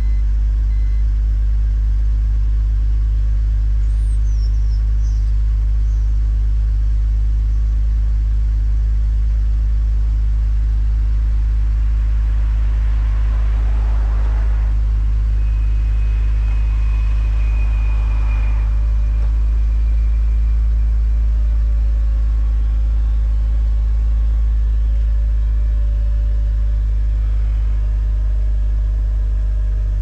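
BMW E46 330Ci's engine idling steadily, with the car's power soft top cycling open: a rush of mechanism noise about halfway through, then a faint wavering whine.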